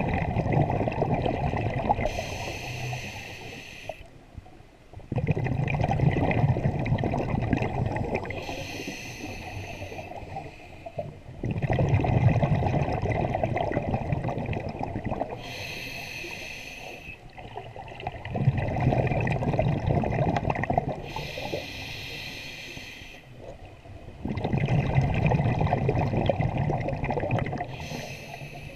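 Scuba diver breathing through a regulator underwater: a short hiss on each inhale, then a longer burst of exhaled bubbles gurgling past, the cycle repeating about every six to seven seconds.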